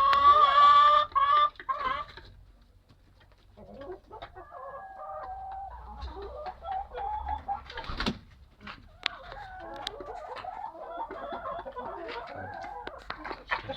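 Rooster crowing, its long call ending about two seconds in. After a short lull, a flock of chickens clucks steadily.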